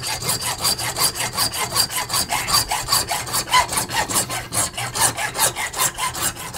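Hand saw cutting a short piece of brass, in quick, even strokes several times a second, with a thin high ring through the cut.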